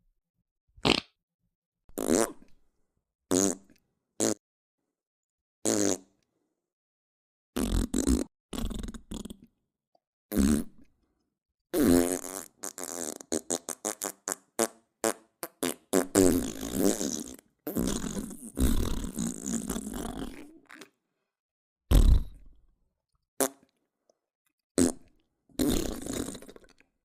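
A string of fart sound effects played one after another with dead silence between them: short single blasts at first, then a rapid sputtering run and a couple of longer drawn-out ones, and a few short blasts near the end.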